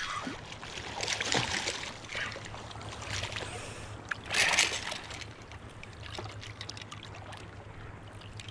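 Shallow surf water splashing and trickling as a hooked striped bass is pulled in and grabbed at the angler's feet. There are several short splashes, the loudest about four and a half seconds in, over a low steady hum.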